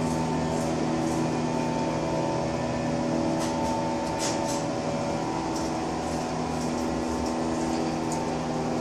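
Small elevator's drive machinery running with a steady hum made of several held tones, with a few faint light clicks now and then.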